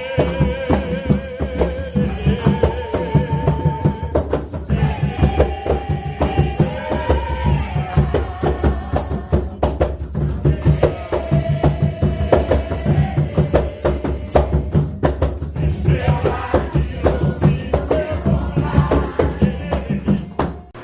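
Religious song with hand drums and a rattle keeping a fast, steady beat, and voices singing a wavering melody over them.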